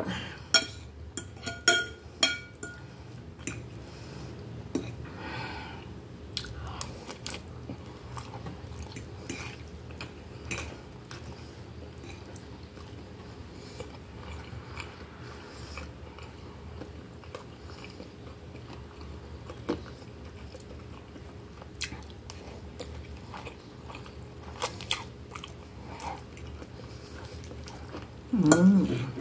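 Close-miked chewing and mouth sounds of a person eating soft oven-baked instant noodles with sausage and melted cheese. A metal fork clinks against the glass plate several times in the first few seconds, and near the end there is a short louder vocal sound with a gliding pitch.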